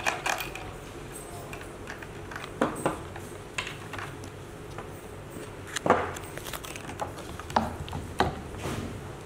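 Scattered clicks and knocks from handling an electric skateboard's rear truck with its hub motors and their plug-in cables on a wooden workbench, the loudest knock about six seconds in.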